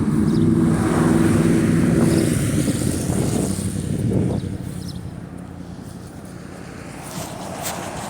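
A motor vehicle passes close by. Its engine hum is loud for the first couple of seconds, then fades away as it moves off.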